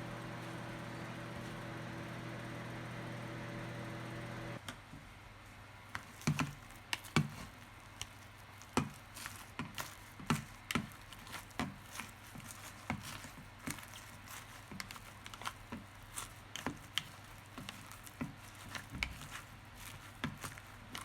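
A steady electric hum that cuts off suddenly about four and a half seconds in, followed by irregular clicks and knocks, like kitchen items being handled.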